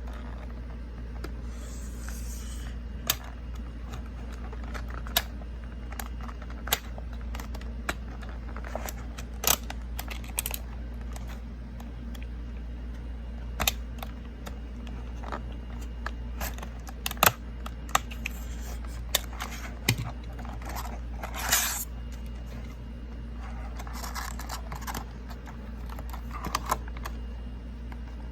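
Scattered light clicks, taps and a few short scrapes of small objects being handled, over a steady low hum.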